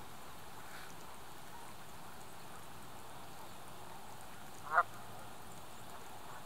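One short call from a water bird, about two-thirds of the way in, over a steady faint hiss.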